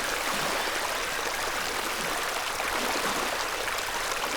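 Running water rushing steadily, like a flowing stream or spring.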